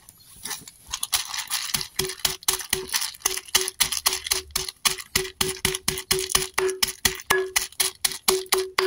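Garlic cloves in a plastic bag being pounded against a concrete floor with the bottom of a bottle to crush them: rapid, repeated sharp knocks, about four a second, starting a second or two in.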